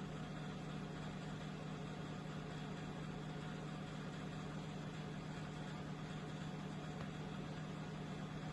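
Electric fireplace heater's fan running steadily, a low hum over an even whoosh of blown air.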